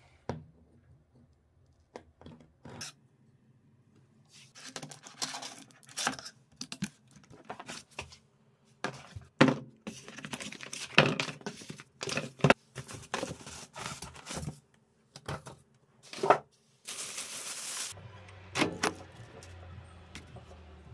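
Irregular handling sounds: a run of sharp knocks, clatters and scrapes of objects being moved, then a brief loud hiss and a low steady hum under a few more clicks near the end.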